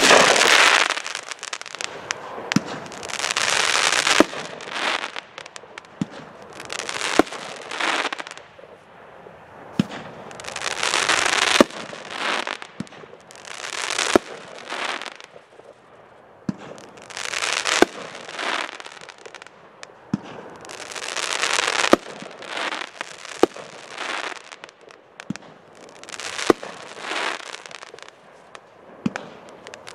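A 500-gram, 15-shot consumer fireworks cake (Supreme Fireworks 'Breakthrough') firing shell after shell. Each sharp launch pop is followed by a crackling burst lasting a second or two, about every two to three seconds.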